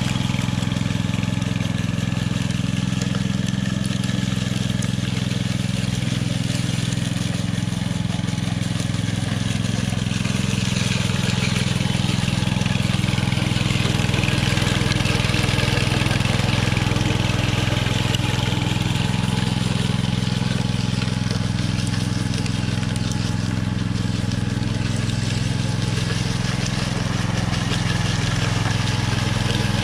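Walk-behind power trowel's small gasoline engine running steadily as its rotating blades are worked across a fresh concrete slab, power-troweling the surface to a finish.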